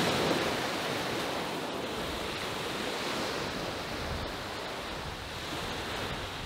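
Steady rushing wash of ocean surf, with some wind on the microphone.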